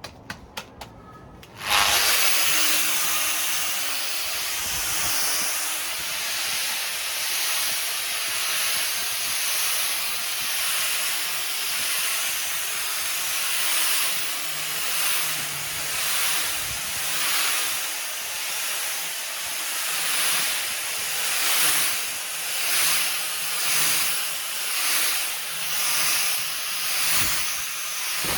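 A few light clicks, then an electric orbital sander starts up about two seconds in and runs steadily on a wooden table top, with a loud sanding hiss. The hiss swells and fades about once a second as the sander is worked back and forth across the surface.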